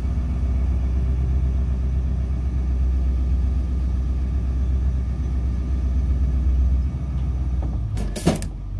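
A bus's engine running as it is driven slowly, a steady low rumble heard from inside the cab. A brief, sharp burst of noise comes about eight seconds in.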